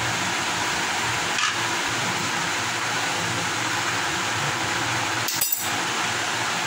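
Steady fan-like hiss, with a light knock about a second and a half in and a short, sharp clink of glass about five and a half seconds in, from a glass jug being handled on a plastic serving tray.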